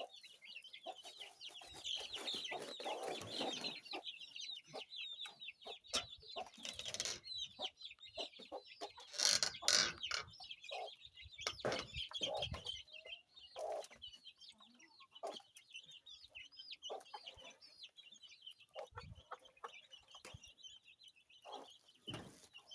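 A flock of young chicks peeping continuously in high, rapid chirps, with chickens clucking and scattered taps and knocks. There is a louder burst of noise about nine seconds in.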